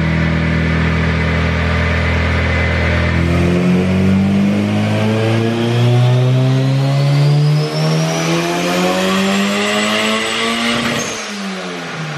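Turbocharged Honda B18 non-VTEC four-cylinder in an EK Civic on a chassis dyno, making a full-throttle pull under boost. The engine runs steady for about three and a half seconds, then climbs steadily in revs for about seven seconds with a high whine rising alongside, then the throttle closes suddenly near the end and the revs drop away.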